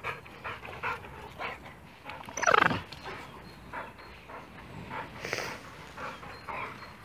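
Dogs panting in short repeated breaths, with one loud yelp that slides steeply down in pitch about two and a half seconds in, and a short breathy snort a little past five seconds.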